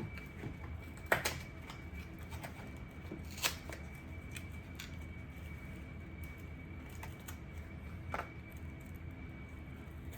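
Packaging being handled during an unboxing: scattered rustles and small ticks, with a few sharper clicks about a second in, at three and a half seconds and near eight seconds. A faint steady high tone and a low hum sit underneath.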